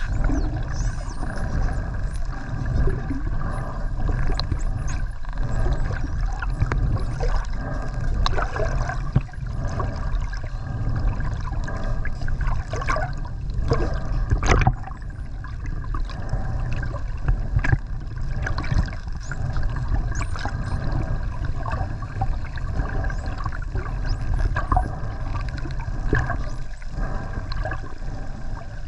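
Spinner dolphins heard underwater, chattering with faint high whistles that rise and fall and scattered clicks, over a steady rush of water.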